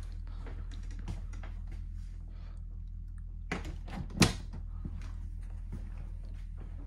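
Light footsteps and handling knocks inside an RV over a steady low hum, with one sharp click from the wooden interior door about four seconds in.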